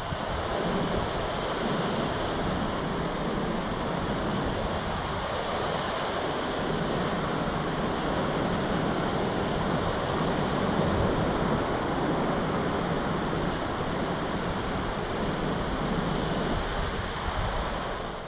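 Waves breaking and washing up on a sandy beach, a steady surf that fades out near the end.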